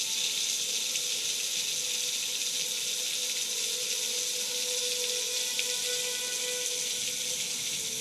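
Heavy rain pouring down steadily. Faintly behind it, an outdoor tornado warning siren holds one steady tone that swells and fades.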